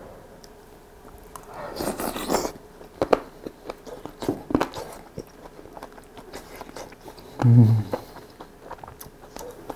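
A man eating gochujang stew with meat close to the microphone: a short slurp from the spoon about two seconds in, then chewing with small scattered mouth clicks, and a short low voiced 'mm' about seven and a half seconds in, the loudest sound.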